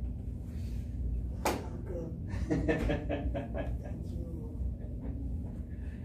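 A single sharp crack about a second and a half in as the chiropractor thrusts by hand on the prone patient's back during her exhale: a manual spinal adjustment. A brief murmur of voice follows.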